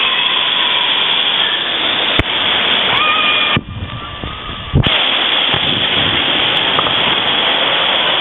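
Heavy water pouring and splashing from a waterpark's giant tipping bucket and the waterfalls over the lazy river: a loud, steady rush. It drops and goes muffled for about a second near the middle.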